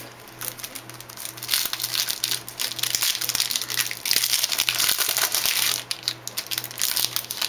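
Plastic wrapper of a baseball-card pack crinkling as it is torn open and the cards are pulled out, in irregular rustling spells, loudest twice.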